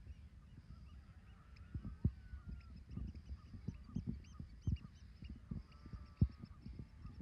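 Birds calling: several drawn-out honk-like calls among many short, high chirps, with irregular low thumps, the loudest about two and six seconds in.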